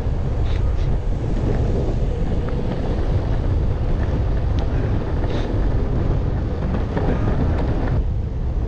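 Wind buffeting the microphone of a camera carried by a rider on a moving electric skateboard: a steady, dense low rumble.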